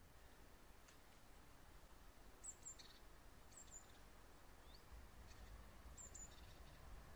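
Near silence with a few faint, high bird chirps in three short groups, about two and a half, three and a half and six seconds in.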